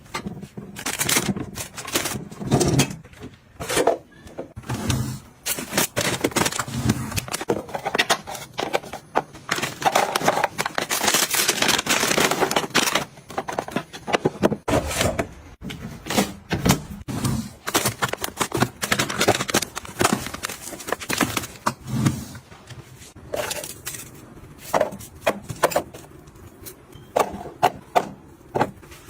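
Household items handled at close range: a steady run of clicks, taps and knocks, with two longer hissing, rustling stretches.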